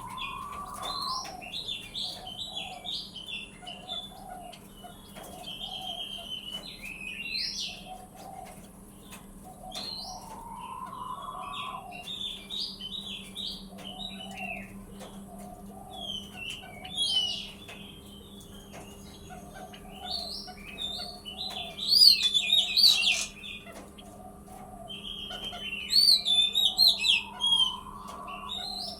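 Male button quail and other birds calling: busy high chirping and warbling, loudest in two bursts in the second half, over a repeated low pulsed calling. A lower rising call comes three times, about ten seconds apart.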